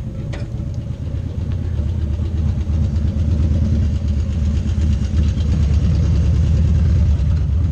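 Motorcycle engines running at low speed, a steady low pulse that grows louder over the first few seconds and then holds.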